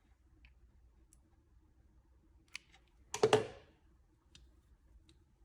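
Tools handled on a work surface: scattered light plastic and metal clicks, with a brief, louder clatter of several quick knocks about three seconds in.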